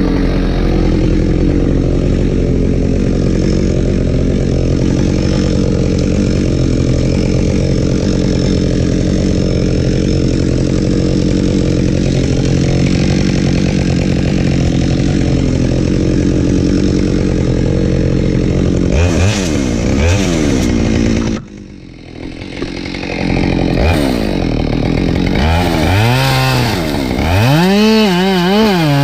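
Husqvarna 572XP two-stroke chainsaw held at a steady high speed, cutting firewood, for most of the stretch. About 19 s in its pitch swings up and down. A little later it suddenly drops much quieter for a couple of seconds, then comes back revving up and down in quick repeated throttle blips near the end.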